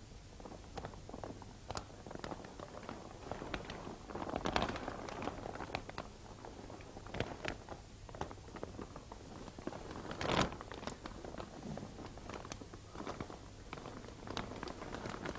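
Large clear plastic bag crinkling and rustling as people move about inside it: irregular crackles, with louder rustles about four and a half seconds and ten seconds in.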